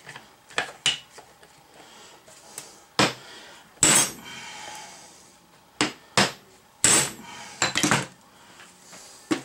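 Hand hammer striking a steel chisel held against a Datsun pickup's steering knuckle, working the seized kingpin loose: about ten sharp metal-on-metal blows at an uneven pace, the hardest ones near the middle, one leaving a brief metallic ring.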